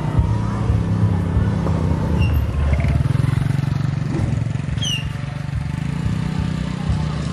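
Motorcycle engine running close by, passing right past about six seconds in, over a steady hum of traffic.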